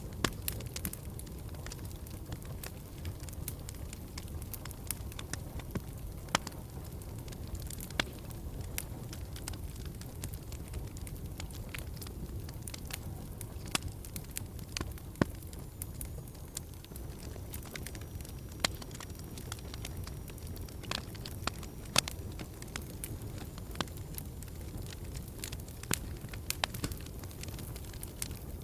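Fire burning in a fireplace, crackling with irregular sharp pops and snaps over a steady low rumble of the flames.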